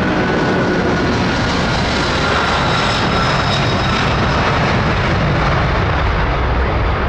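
Jet airliner's engines running, a loud steady rush of engine noise with a high whine that drops slightly in pitch over the first few seconds.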